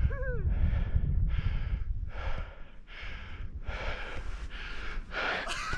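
A skier panting hard, out of breath from skiing, with quick breaths about every half second close to the microphone. A brief voiced huff comes just after the start, and a low rumble on the microphone fades out about two seconds in.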